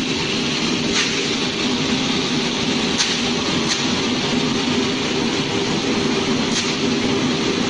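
Animal feed grinder and mixer running steadily while grinding corn: an even machine drone with a few sharp ticks scattered through it.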